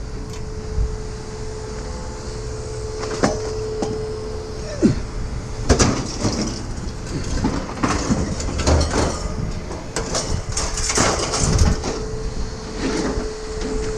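Scrap metal being handled and pulled apart: irregular clanks, knocks and scraping, busiest from about halfway through, over a steady hum.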